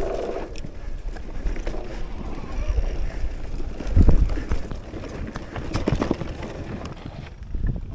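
Mountain bike riding over rough trail: a continuous rattle of knocks and clicks from the bike, with wind rumbling on the microphone and one heavy thump about four seconds in.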